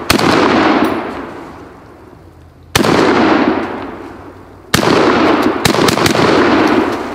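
RIA VR80 12-gauge semi-automatic shotgun firing high-brass shells. There is a shot near the start, another about 2.7 s in, and one about 4.7 s in, followed by a quick string of shots close together about a second later. Each shot echoes and dies away over a second or two, and the action cycles fine with the high-brass loads.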